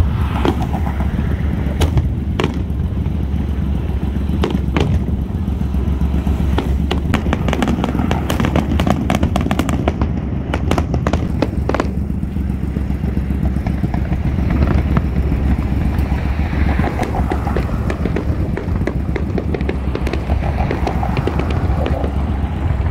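Aerial fireworks going off in quick succession, sharp bangs and crackles, thick for the first twelve seconds or so and thinning after, over a steady low rumble.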